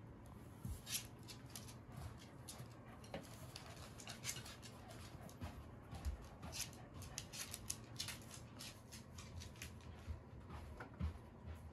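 Pembroke Welsh corgi's claws clicking and tapping on a wooden floor as it walks about, in irregular, light, quick clicks.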